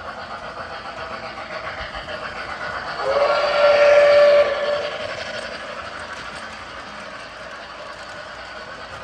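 O scale model train running on the layout, with the locomotive's sound system blowing one whistle blast about three seconds in that lasts about a second and a half.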